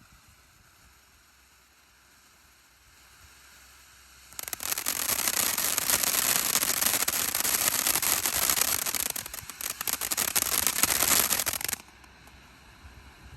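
A 500-gram firework fountain bursts suddenly into a loud, dense crackling hiss of sparks about four seconds in, dips briefly, then stops abruptly near the end.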